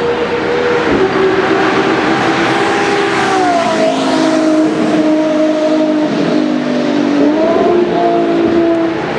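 Ferrari LaFerrari's 6.3-litre V12 at speed as the car drives past on a wet track, its high engine note stepping down about a second in, dropping sharply as it goes by, then climbing again near the end. A hiss of tyre spray off the wet surface runs under the engine.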